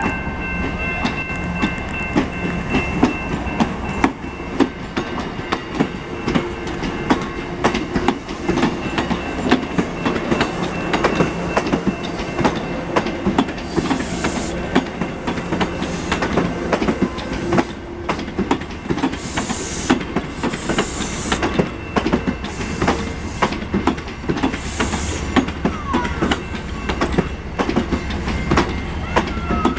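Passenger train of bilevel coaches passing close by, its wheels clicking rapidly over the rail joints. A low drone dies away about halfway through, and short hisses come and go in the second half.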